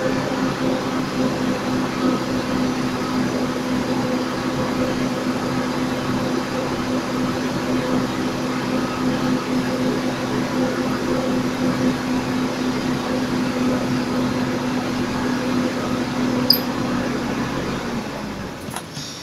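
Parked bus idling with a steady hum. There is a single click about three-quarters of the way through, and the hum stops shortly before the end.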